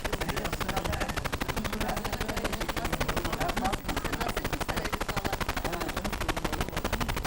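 Corrupted audio track: a rapid, even crackling stutter many times a second, with faint voices smeared underneath.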